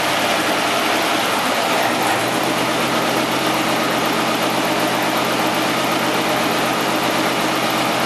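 Studebaker 289 V8 running steadily on an engine dyno with no revving.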